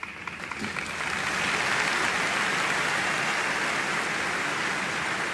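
Large audience applauding: a few scattered claps at first, swelling within about a second into steady, dense clapping.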